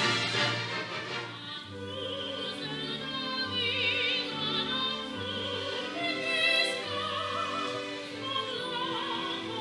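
Opera music from a stage performance: a woman singing with wide vibrato over an orchestra, which plays alone for the first couple of seconds before the voice enters.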